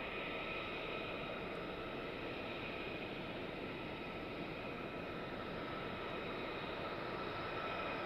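F-35A's jet engine running steadily, a constant rush with a thin high whine over it.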